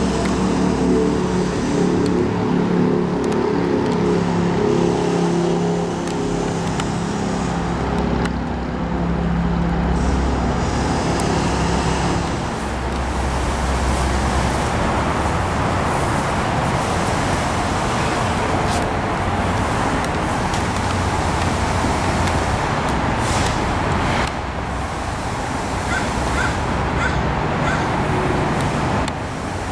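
Steady road traffic noise from a street, with a low hum of several pitches that fades out about twelve seconds in.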